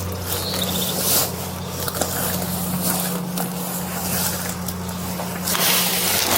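Irregular rustling and scraping noise from a body-worn camera's microphone rubbing against clothing, over a steady low hum, with a louder burst of rustle near the end.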